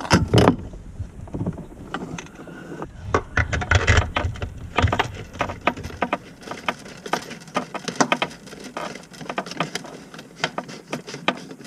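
Irregular clicks, taps and small metallic knocks of kitchen faucet mounting parts being handled and a nut threaded on by hand, ending hand tight.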